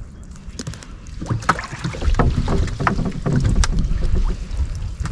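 Gill net being hauled by hand into a small fishing boat: water splashing, the wet net and scattered knocks against the boat, busier and louder from about two seconds in.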